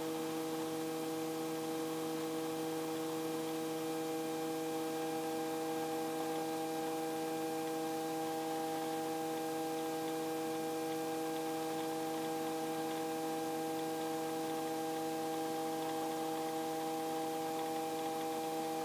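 Light helicopter in cruising flight: the engine and rotors make a steady hum of several tones over a faint hiss.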